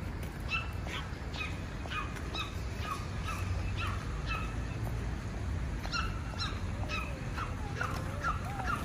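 Repeated short animal calls, about two or three a second, over a steady low rumble, with a longer wavering call near the end.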